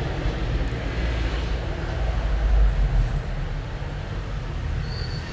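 Steady low rumble of motor vehicle noise with a broad background hiss, wavering in loudness.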